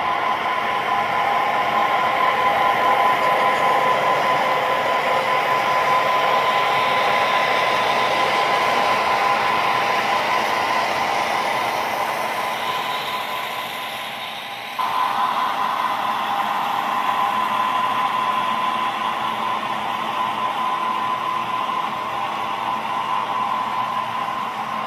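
Sound-equipped HO-scale model diesel locomotives play a steady diesel engine drone through their small onboard speakers, mixed with the whir of the freight train's wheels on the track. The sound fades as the locomotives draw away, then jumps back to full strength at an abrupt cut about two-thirds of the way in.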